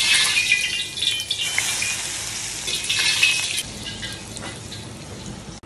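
Hot oil poured over minced garlic and chili powder, sizzling and crackling, loudest at first and fading over the next few seconds.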